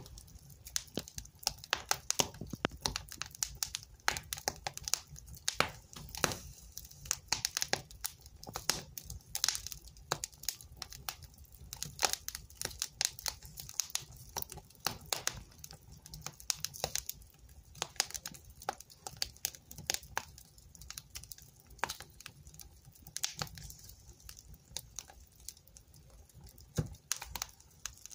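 Wood fire crackling in a fireplace: dense, irregular pops and snaps over the low, steady sound of the burning flames.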